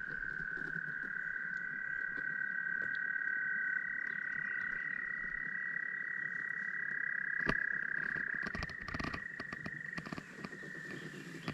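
Frogs trilling from the lakeshore: two long, steady trills at slightly different pitches overlap, and the lower one stops a little past two-thirds of the way through. A sharp click comes just before that, followed by a run of small knocks near the end.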